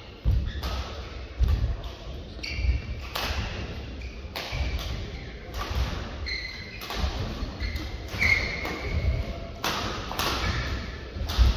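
Badminton rally in a large sports hall: sharp racket strikes on the shuttlecock every second or so, short high squeaks of shoes on the court mat, and low thuds of players' footwork.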